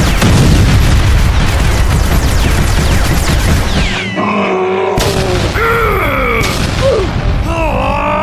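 Cartoon explosion sound effects: dense booming blasts with many falling whistles for about four seconds, then several short pitched cries that slide up and down in pitch.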